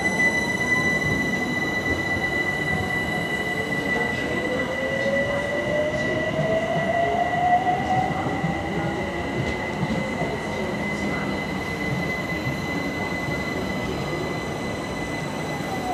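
London Overground Class 378 electric trains running through a station, with the rumble of wheels on rail under a steady high-pitched whine. A motor whine rises in pitch over several seconds in the middle, and near the end another whine falls in pitch as a train slows alongside.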